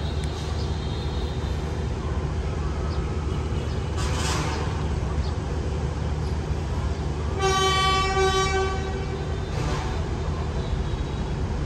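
D19E diesel-electric locomotive running with a steady low engine rumble, sounding one horn blast of about a second and a half a little past the middle. Two short hissing bursts come about four seconds in and near the end.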